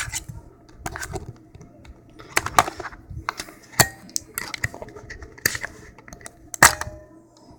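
Batteries being taken out of a digital door peephole viewer's plastic battery compartment: irregular sharp clicks and clatter of batteries and plastic being handled, the loudest about four seconds in and near the end.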